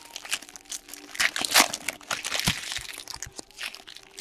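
Foil trading-card pack wrappers crinkling and crackling as packs are handled and opened, with scattered short clicks from the cards.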